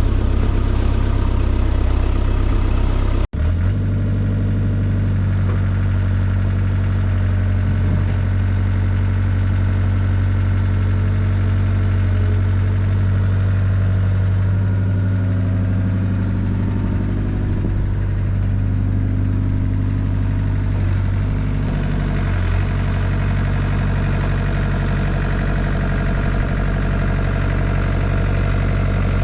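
Caterpillar 307 excavator's diesel engine running steadily, with its pitch shifting somewhat in the middle; the sound cuts out for an instant about three seconds in.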